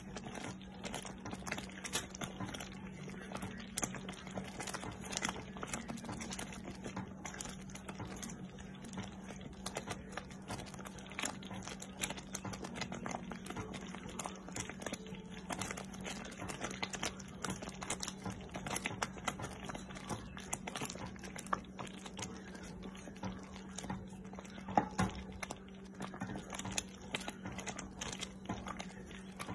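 Thick strawberry jam boiling in a speckled enamel pot, popping and spitting in irregular quick clicks as a wooden spoon stirs it, over a steady low hum.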